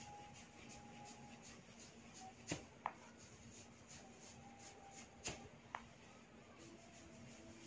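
Two sharp pops about three seconds apart, typical of neck joints cracking during a manual neck adjustment. Each pop is followed a moment later by a brief high squeak, over faint room tone.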